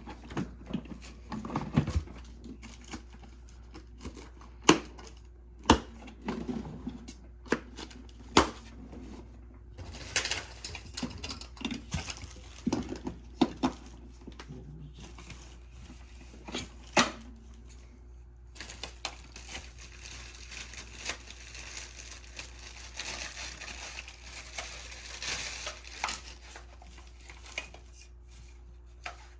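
Plastic packaging crinkling and rustling, with many sharp clicks and knocks of hard plastic parts being handled during the unpacking of a cordless vacuum cleaner.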